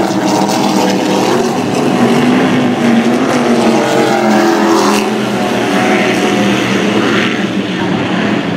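Engines of offshore racing powerboats running at speed as the boats pass, a steady loud drone whose pitch wavers up and down.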